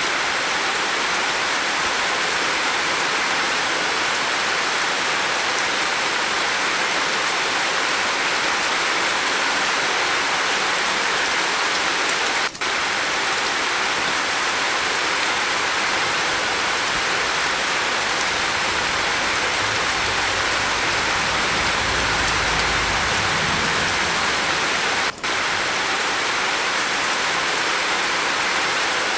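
Steady rain on a roof, a dense even hiss. A faint low rumble swells and fades about two-thirds of the way through, and the sound briefly drops out twice.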